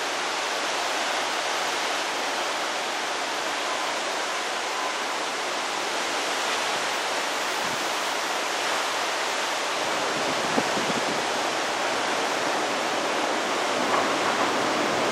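Severe derecho thunderstorm winds, around 70 mph at the gust front, blowing steadily through trees as a continuous rushing hiss that grows slightly louder near the end.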